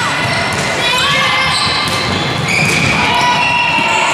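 Volleyball players' court shoes squeaking on a wooden sports-hall floor during a rally: several drawn-out squeaks, some sliding in pitch. Sharp thuds of the ball being passed and set are mixed in.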